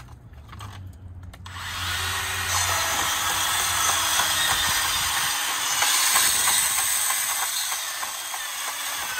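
Ridgid 18V cordless portable band saw cutting through metal tubing: from about a second and a half in, the blade's loud steady grinding in the metal, with the motor's hum beneath.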